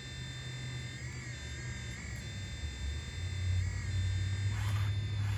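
Electric hydraulic pump of an RC skid steer running with a steady high whine and low hum, its pitch dipping briefly a few times as the hydraulics take load. The hum deepens and grows louder about three seconds in, and short hissing bursts come near the end.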